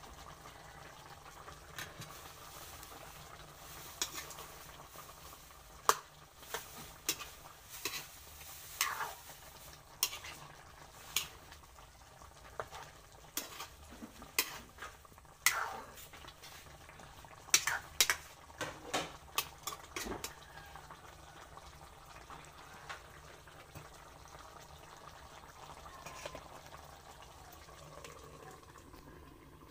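Chicken and potato stew bubbling in a metal wok, with a utensil knocking and scraping against the pan in a run of sharp clinks through the middle as the stew is stirred.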